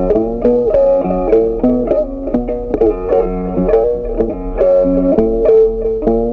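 Background music: an instrumental tune on a plucked-string instrument, guitar-like, picked in a quick run of notes.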